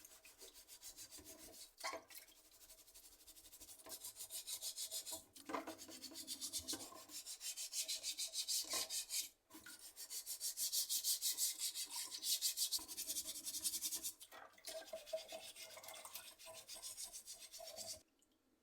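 Keyboard parts being scrubbed in quick back-and-forth strokes, with a few short pauses, stopping abruptly near the end.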